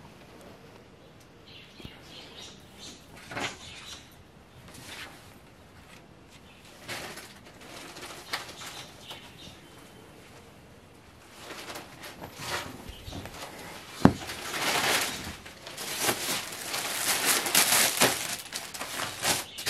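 Suit fabric being handled: cloth rustling and flapping as it is moved and folded, denser and louder in the second half, with one sharp tap about fourteen seconds in.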